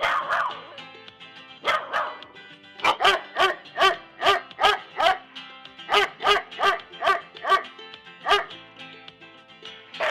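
A dog barking in quick runs of sharp barks, about three a second, with a few single barks between the runs, over background music.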